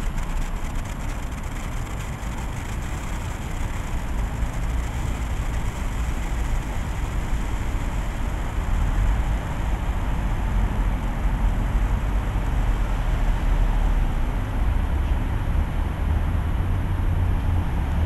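Steady low rumble of outdoor city background noise, such as traffic, growing heavier in the last few seconds.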